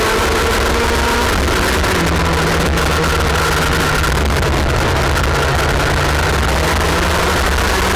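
IAME X30 125cc two-stroke kart engine, heard onboard as the kart laps the track. The engine note drops about a second in, then holds lower and sinks slightly, over a low rumble and wind rush.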